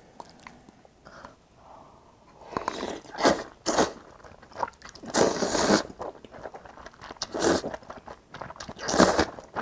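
Noodles from a bowl of Korean army stew being slurped and chewed: a few short slurps, with one longer slurp about five seconds in.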